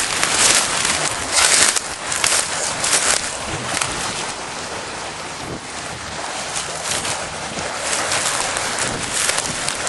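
Dry grass and brush rustling and swishing against a handheld camera as it pushes through vegetation, most strongly in the first three seconds, over a steady rushing noise.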